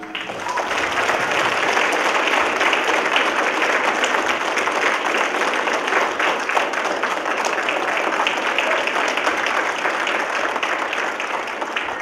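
An audience applauding, a dense patter of many hands clapping that swells up over the first second and then holds steady.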